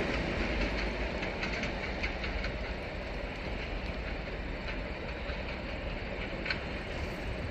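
Passenger train rolling away after clearing a grade crossing, its steady low wheel rumble fading as the cars recede.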